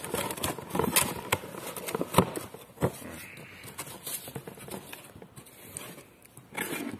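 Cardboard box being opened by hand, its flaps scraping and rustling, with scattered sharp clicks and knocks as the plastic pressure controller inside is handled.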